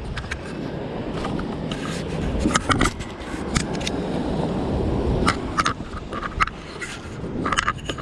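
Wind and surf rumbling on the camera microphone, with irregular short scrapes and clicks, a few each second, as of handling or steps on rough rock.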